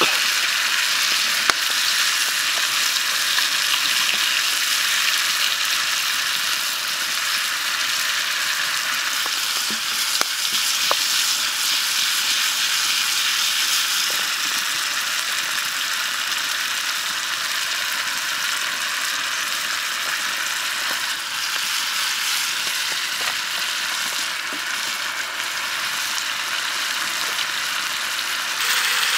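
Frog meat, onion and chili cooking in sauce in a metal pan over a wood fire, giving a steady high sizzle. A few sharp pops stand out from it.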